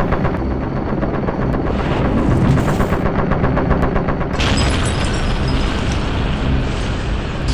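Rapid automatic fire from a helicopter's door-mounted machine gun, a fast even rattle of shots over a steady low drone. About four and a half seconds in, sharper and brighter impact sounds join in.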